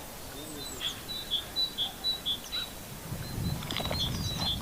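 A small bird calling a run of short, high chirps at a steady pitch, about four a second. About three seconds in, a low rumbling noise joins it.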